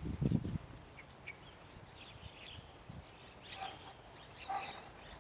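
A low thump, then a few short, high bird calls spaced about a second apart.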